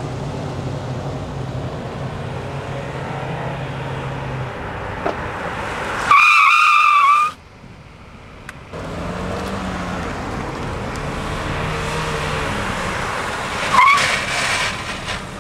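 Car engine running as the car accelerates, then tyres squealing loudly for about a second as a car brakes hard in a panic stop, about six seconds in. A second, shorter tyre squeal near the end comes from another car making the same hard stop. The squeal is the sound of tyres skidding at the edge of lockup under full braking.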